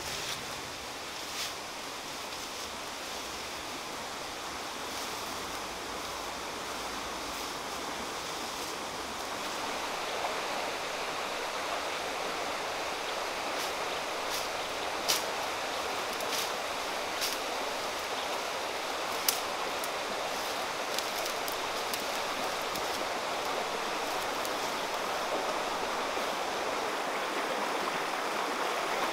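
Steady rushing noise, like running water, with a few scattered sharp snaps and crackles of twigs and brush as someone walks through dense undergrowth.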